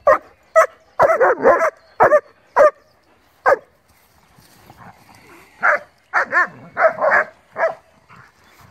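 Dogs barking while playing rough: short, high yappy barks in quick bursts, a cluster in the first three seconds, a single bark about three and a half seconds in, then another run of barks from about six to seven and a half seconds.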